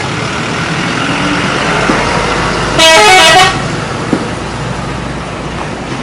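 Indonesian bus 'telolet' musical air horn sounding one short burst of a few quick rising notes about three seconds in, over steady traffic noise.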